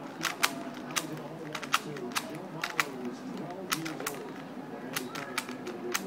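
Plastic Rubik's Cube layers being twisted by hand: about a dozen sharp clicks at an uneven pace, some coming in quick pairs.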